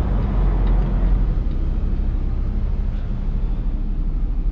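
Semi truck's diesel engine running steadily at low speed, heard from inside the cab as the truck creeps into a parking spot.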